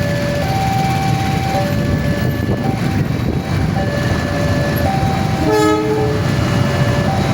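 Railway level-crossing warning alarm sounding a two-tone signal, switching pitch about once a second, over a steady low rumble. About five and a half seconds in, a train horn gives one short blast.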